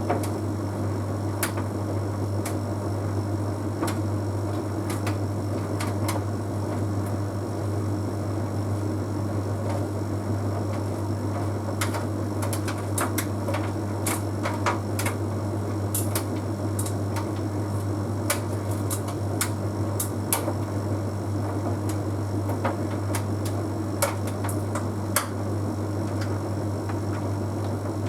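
Bosch Series 6 heat pump tumble dryer running mid-cycle on an Easy Care drying programme: a steady low hum with irregular light clicks and taps scattered throughout.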